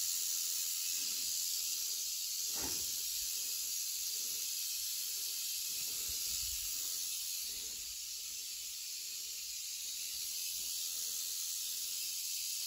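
Rattlesnake rattling its tail: a continuous high, hissing buzz with no break, the warning rattle of an agitated, defensive snake.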